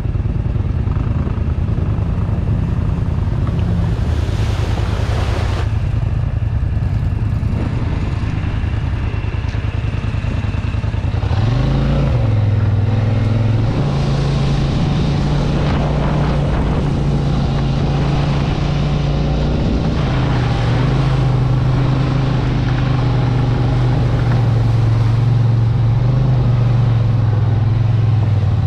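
Off-road vehicle engine running steadily under load. About twelve seconds in its pitch rises sharply and stays higher, as it is given more throttle. Twice a rushing noise rises over it.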